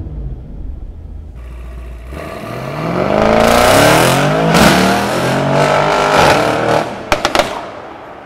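Mercedes-AMG E63 S (S213) M177 twin-turbo V8 with a catalysed downpipe accelerating hard. The engine note climbs steeply, drops at an upshift about four and a half seconds in, and climbs again. A few sharp cracks come near the end, then the sound fades as the car pulls away.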